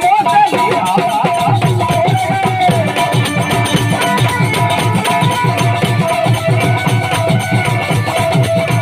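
Instrumental interlude of a Hindi bhajan: fast, steady drumming with shakers under a melodic lead instrument whose line bends in pitch during the first few seconds.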